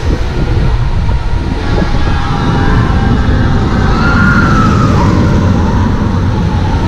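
Zamperla motorbike roller coaster train running past on its steel track, a rumble that builds to a peak about four seconds in, with a high wavering tone rising and falling at its loudest.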